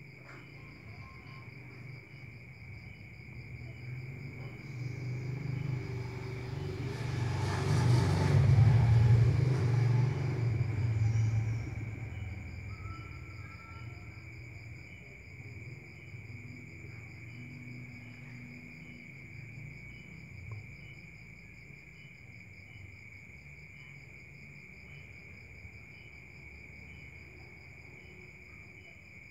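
Crickets chirping steadily in a high, even trill. A low rumble swells from about four seconds in, is loudest around eight to nine seconds, and fades out by about twelve seconds, as of a vehicle passing by.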